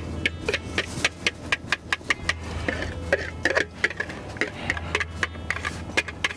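Kitchen utensils and dishes clinking and knocking in a quick, irregular run of sharp clicks, some with a short ring, over a low steady hum.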